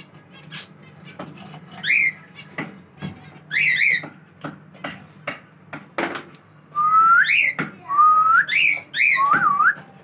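Cockatiel whistling: short calls through the first half, then three longer rising whistles close together in the second half. Short sharp chirps from smaller aviary birds sound between them.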